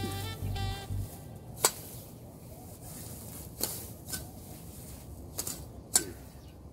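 Background music that ends about a second in, then about six sharp, irregularly spaced chops of a meat cleaver hacking at clumps of grass.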